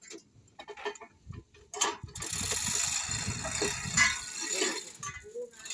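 Manual chain hoist worked to lift a stack of speaker cabinets: the steel chain rattles and the ratchet clicks. A few scattered clinks come first, then a steady run of rattling for about three seconds from about two seconds in.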